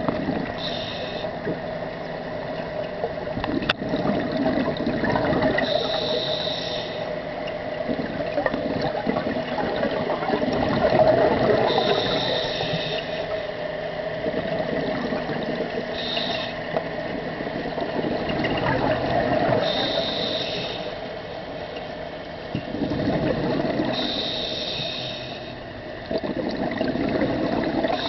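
Scuba diver breathing through a regulator underwater: a short hiss on each inhale and a rush of bubbles on each exhale, repeating about every four to five seconds over a steady hum.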